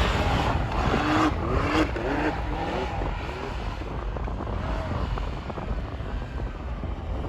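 Side-by-side UTV engine revving up and down in quick surges over a thick rush of wind and tyre noise, then settling to a steadier, quieter run after about four seconds.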